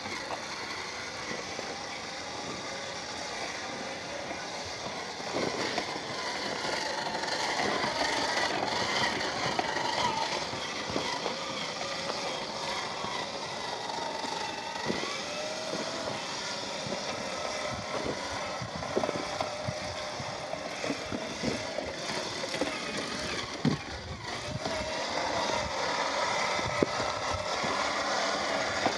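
Traxxas TRX-4 RC crawler driving off-road: its 550 electric motor and gearbox whine, the pitch wavering up and down with the throttle, over a steady noise of tyres and drivetrain, with scattered knocks and clatters as the chassis works over the terrain.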